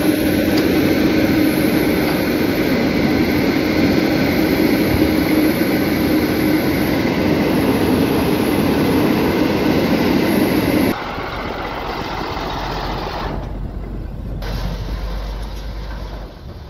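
Caterpillar excavator's diesel engine running hard with a steady drone while it digs dry dirt. About eleven seconds in, the sound changes abruptly to the quieter, lower running of a multi-axle dump truck's diesel engine as it drives over dirt.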